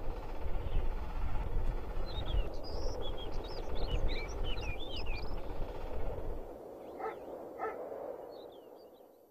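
Small birds chirping in quick short calls over a low outdoor rumble, with two short knocks about seven seconds in; the whole fades out near the end.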